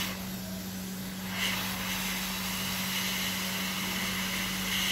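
Hot-air rework station blowing through its nozzle onto a circuit board: a steady hiss over a constant low hum, a little stronger from about a second in, as it heats the solder to fit a replacement diode.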